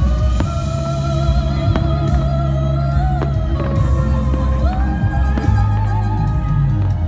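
Music: a song with a held, sung melody over heavy bass and a steady beat.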